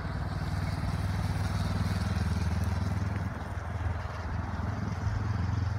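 Motorcycle engine running steadily as the bike circles nearby, louder for a couple of seconds, easing off a little past the middle and swelling again near the end.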